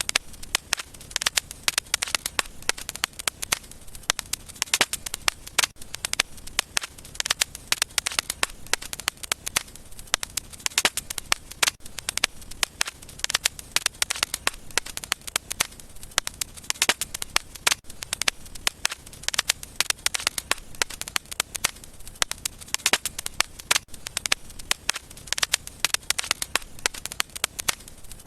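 Wood fire in a fireplace crackling steadily, with many sharp pops and snaps a second over a soft background hiss.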